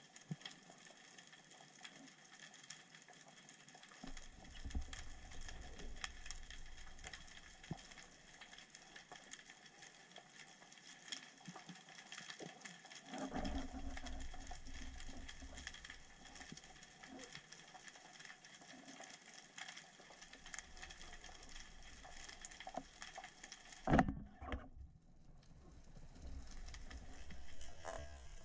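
Underwater ambience picked up by a diver's camera housing: faint, constant crackling and clicking, with low rumbles of water moving around the housing as the diver swims. Near the end there is one loud knock.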